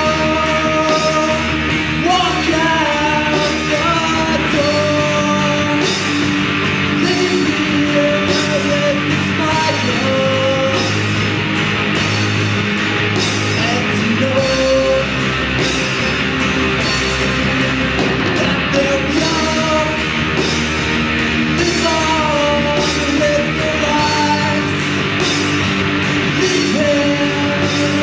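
Live rock band playing a song: drums with regular cymbal strokes, electric guitar and bass under a wandering melodic lead line.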